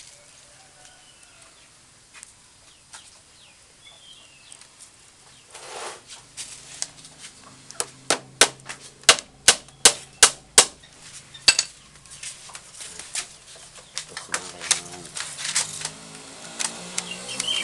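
A hammer tapping rattan binding tight around a bamboo joint: a quick run of about ten sharp taps, roughly three a second, in the middle, with a rustle of the rattan strips before it and scattered lighter clicks after.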